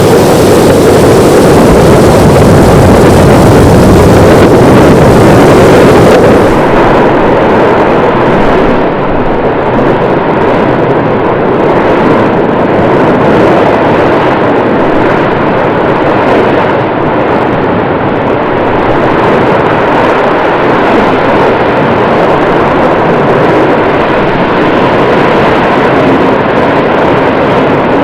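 Volcanic eruption: a loud, continuous rush of dense noise. About six seconds in, the hiss at the top thins out and it goes on lower and darker.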